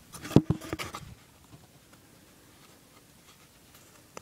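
Handling noise: a quick flurry of sharp clicks and knocks in the first second as the hardened FiberFix panel is gripped and moved against the phone, then quiet.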